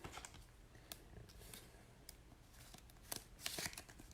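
Faint rustling and scattered light clicks of trading cards being handled, with a small cluster of clicks about three seconds in.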